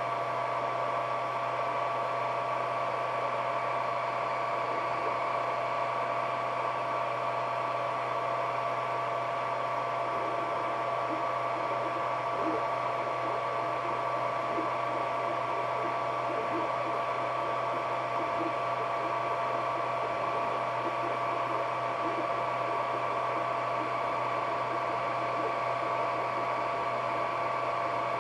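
Ender 3D printer running: a steady fan whir with two steady whining tones, and faint shifting motor tones joining in from about ten seconds in as the print head moves.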